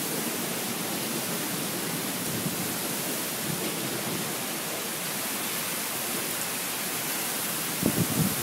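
Heavy storm rain pouring down, a steady even hiss, with a few brief low thumps near the end.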